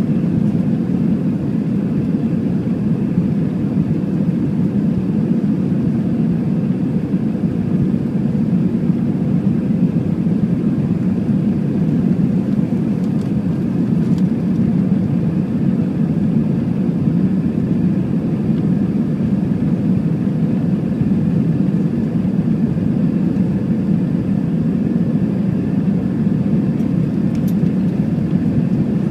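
Steady cabin noise of an Airbus A320 climbing out after takeoff, heard from a seat over the wing. The jet engines and rushing airflow make a deep, even rumble, with a faint steady hum above it.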